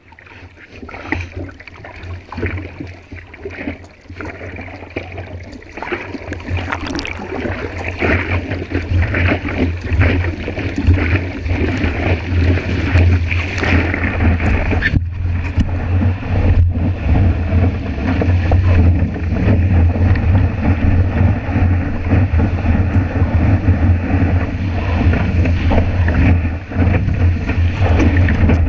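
Seawater splashing and rushing over a surfboard-nose action camera, with wind buffeting its microphone in a heavy low rumble. Choppy paddling splashes at first grow into a louder, steadier rush of water as the board moves through the surf.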